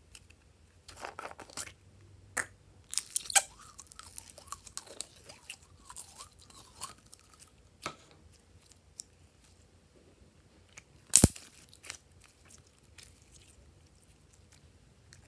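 A plastic slime jar clicks as it is opened, then red glitter clear slime is squeezed and stretched by hand with sticky crackles, pops and small squelches. One loud knock comes about eleven seconds in.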